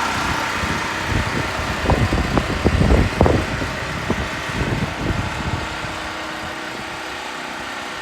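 Harbor Freight Predator 4375 portable generator's single-cylinder engine running steadily soon after its first start, a little fainter toward the end. Around the middle, a cluster of irregular low bumps and rumbles sits over the engine sound.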